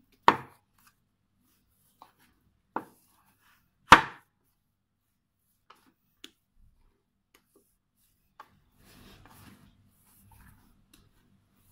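Bun dough being kneaded by hand on a wooden board: a few separate sharp thumps as the dough and hands knock against the board, the loudest about four seconds in, then only small taps and faint rubbing.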